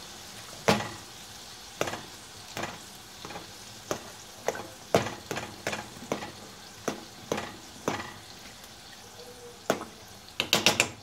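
Metal fork clicking and scraping against the inside of a cooking pot as it breaks up ramen noodles in water, irregular strikes about once or twice a second, with a quick run of clicks near the end. Underneath is a steady hiss from chicken frying in a pan on the same stove.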